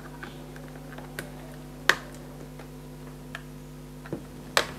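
Plastic casing of a mirror-type dashcam clicking as a pry tool is worked along its seam, prising the halves apart. About five sharp, irregularly spaced clicks, the loudest about two seconds in.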